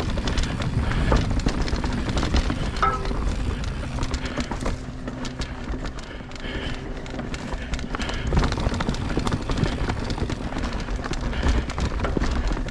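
Polygon mountain bike ridden over rough singletrack: tyres on dirt and rocks, with a rapid, irregular clatter of knocks from the bike over the bumps above a steady low rumble.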